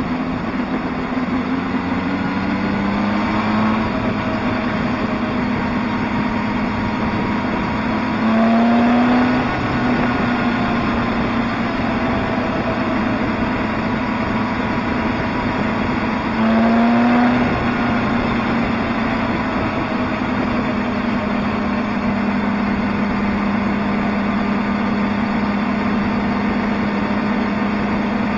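Motorcycle engine running while riding, heard from on the bike. The engine note rises and gets louder twice, about eight and seventeen seconds in, as the throttle is opened, then settles back to a steady note.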